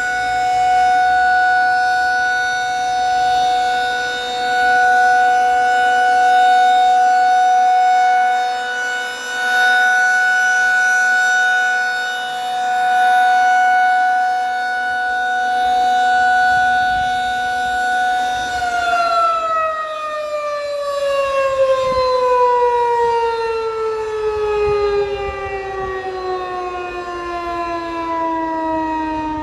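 Outdoor civil defense warning siren sounding a steady tone during its one-minute test, its loudness swelling and dipping every few seconds. About 18 seconds in it cuts power and winds down, the pitch falling steadily.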